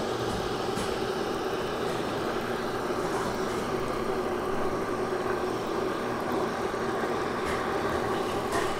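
Steady mechanical hum of a running motor, holding one low tone without change.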